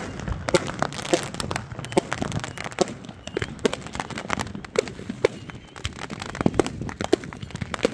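Consumer fireworks cake going off at close range: an irregular run of sharp pops and cracks, several a second.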